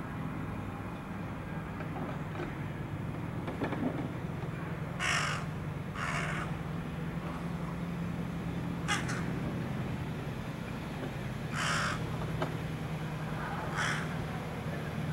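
Juvenile jungle crow (large-billed crow) calling: about five short, harsh caws at irregular intervals a second or more apart.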